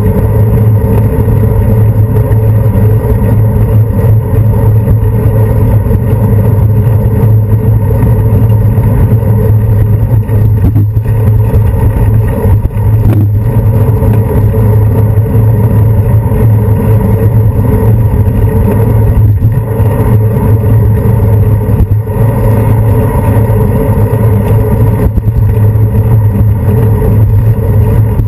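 Loud, steady rumble of a bicycle riding along a paved road, picked up through a handlebar-mounted GoPro Hero 2: road vibration and wind with no distinct events.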